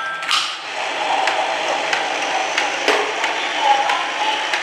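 Battery-powered toy train running on plastic track, its small motor whirring steadily with irregular clicks and knocks from the wheels and track joints.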